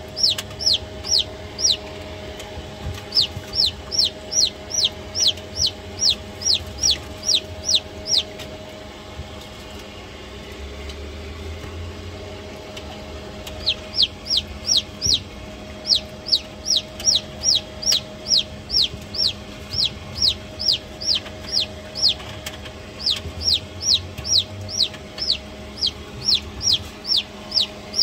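Chick peeping: runs of short, high calls, each falling in pitch, about four a second, breaking off for a few seconds midway and then resuming. A faint steady hum runs underneath.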